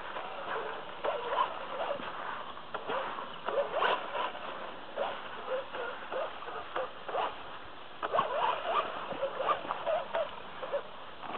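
Irregular splashing and gravel crunching in a shallow stream bed: a run of short, uneven bursts with no steady tone.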